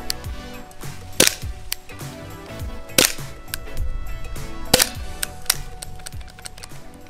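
ICS Korth PRS gas blowback airsoft pistol firing single shots, three sharp cracks spaced nearly two seconds apart, with fainter clicks between them, over background music.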